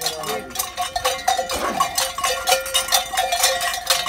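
Large metal cowbells (chocalhos) worn at the waist of a masked Chocalheiro, clanking continuously as he walks.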